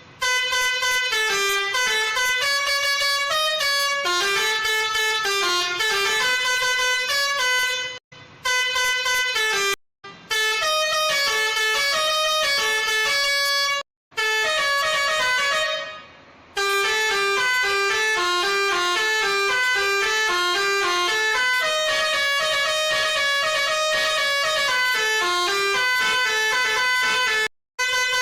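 Old-style Indonesian "telolet" bus horn, a multi-tone horn set playing a tune in quick stepped notes with several tones sounding together. It breaks off briefly a few times and drops low for a moment about halfway through.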